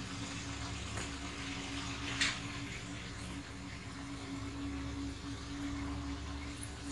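Light scrapes and taps from a soldering iron working on a small circuit board while a reed switch is desoldered, the sharpest scrape about two seconds in, over a steady low hum.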